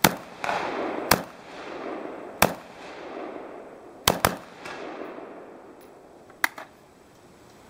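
Swiss Arms rifle of the SIG 550 family, chambered in 5.56×45mm NATO, firing about five single shots over the first four and a half seconds, the last two close together. Each shot has an echo that fades over about a second. A few light clicks follow near the end.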